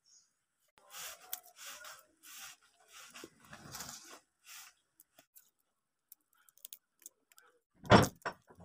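Dry papery garlic skins crackling and rustling as cloves are peeled by hand, in a string of short bursts, then a few small scattered clicks. A single dull thump near the end.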